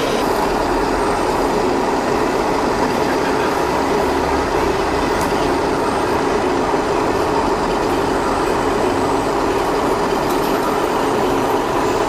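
Steady, even engine-like drone of a radio-controlled construction model running, holding one pitch throughout.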